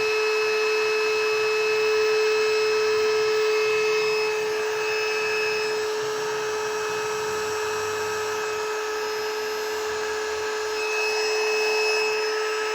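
Electric air pump running steadily with a constant whine, blowing air into an inflatable mattress as it slowly fills.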